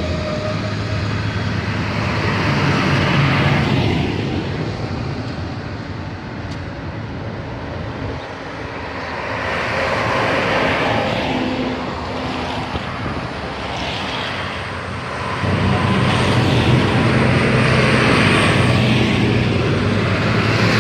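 Big diesel farm tractors driving past one after another, a green John Deere and then a blue New Holland: a steady engine drone with tyre noise on wet tarmac. It swells as each tractor comes by and eases between them, loudest near the end.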